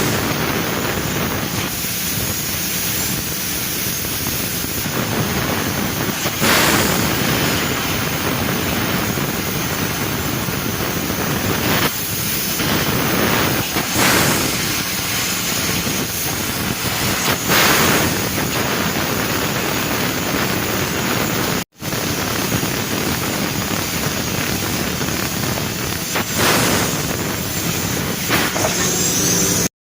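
Laser cutting machine running with a steady, loud rushing hiss, surging louder briefly several times. It breaks off for an instant about two-thirds of the way through.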